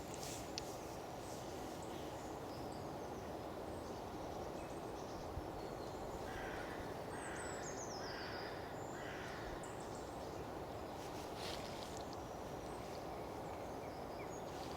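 Outdoor ambience of steady background noise with birds calling. About halfway through a bird gives four short calls in a row, with a high, falling trill over them.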